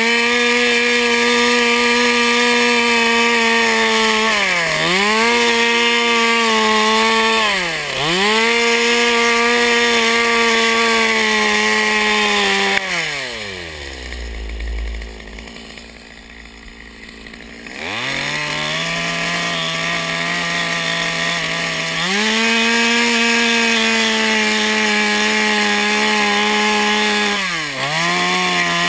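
Two-stroke chainsaw running at high revs, dipping briefly twice in the first eight seconds. About halfway through it drops to idle for a few seconds, then revs up part way, returns to high revs, and dips once more near the end.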